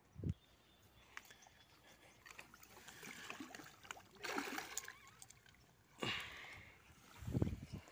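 Water splashing as a hooked fish thrashes at the surface and is scooped into a landing net, in uneven bursts through the middle. A dull low thump near the end.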